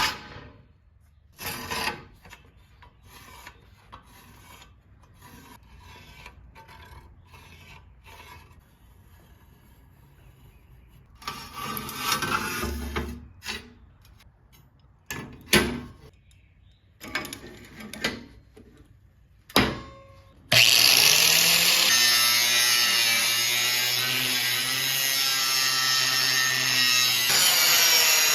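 Workshop handling sounds: scattered knocks and clatters of tools and stock, with a short stretch of rubbing. About twenty seconds in, a power tool starts suddenly and runs steadily and loudly, its motor pitch rising slightly.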